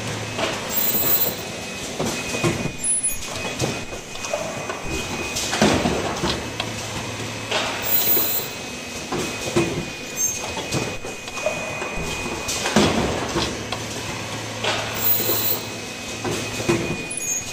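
Automatic cup-mask production line running: irregular clanks and knocks from the indexing conveyor and pneumatic stations over a steady high tone, with a low hum that comes and goes every few seconds.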